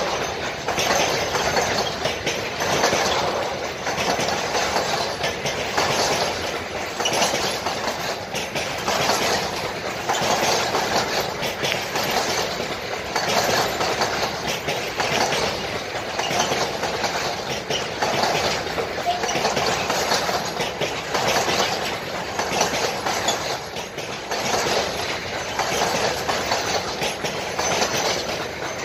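Container freight train rolling past on flat wagons, its wheels clattering in a steady rhythm that swells and eases about every second and a half as the wagons go by.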